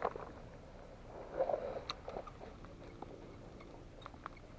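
Faint handling sounds of a lure cast with a casting rod and reel: a brief rustle of the swing about a second and a half in, a sharp click just after, then a few light ticks and a faint steady hum as the line is worked.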